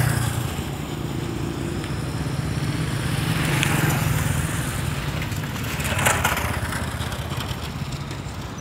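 Motor vehicle's engine running with a steady low hum under road and wind noise while driving. Brief swells of rushing noise come a little under four seconds in and again about six seconds in, the second the loudest.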